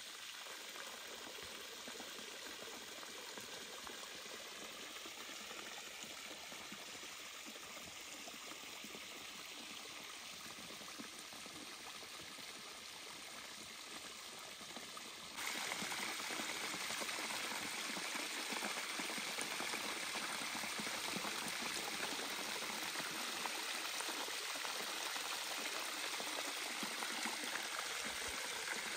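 Water running down a wet rock face and into a shallow pool below: a steady trickling rush that gets abruptly louder about halfway through.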